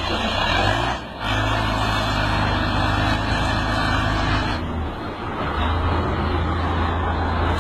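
Engine of heavy construction machinery running steadily with a loud, noisy mechanical wash. The sound breaks off abruptly about a second in and changes again a little past halfway.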